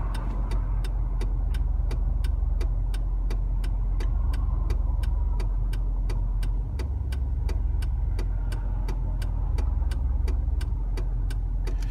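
Car idling at a standstill with its turn signal ticking steadily, about three ticks a second, over the low engine hum.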